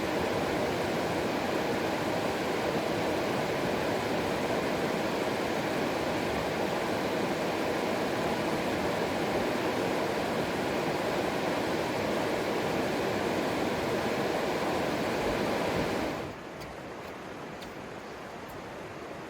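River water rushing steadily, a dense even noise; about sixteen seconds in it cuts abruptly to a quieter, softer rush.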